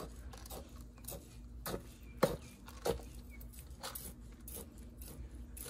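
A metal spoon stirring soaked glutinous rice in a plastic colander to mix in salt and cooking oil: soft grainy scraping with a few sharper clicks of the spoon against the basket.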